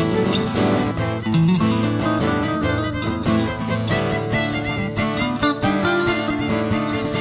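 Background music played on acoustic guitar, with plucked and strummed notes.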